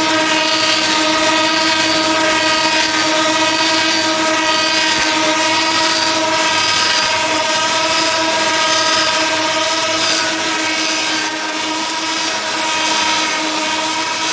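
Wooden handle-making lathe running: a loud, steady mechanical whine at one fixed pitch over the hiss of the cutters working the wood, dipping slightly about ten seconds in.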